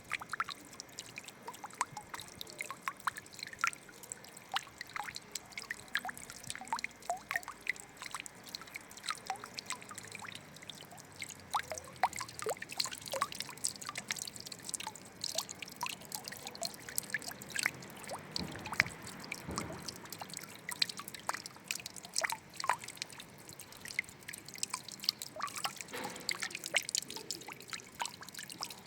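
Water trickling and dripping: a steady faint wash with many small, irregular splashes and drops, and a short deeper gurgle about two-thirds of the way through.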